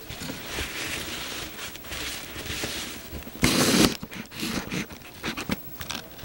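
Paper napkin rustling and crinkling in hands close to the microphone, with a much louder rustle lasting about half a second a little past halfway, then scattered light taps and ticks.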